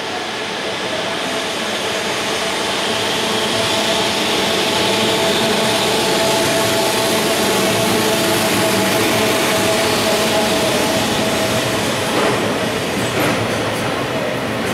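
JR East 209 series MUE test train departing at low speed: a steady electric whine of its traction equipment over rolling noise, growing louder over the first few seconds. A few sharp clicks come near the end.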